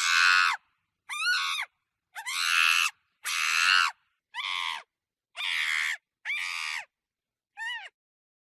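Monkey screeching: eight short, high-pitched calls, each under a second, with silent gaps between them.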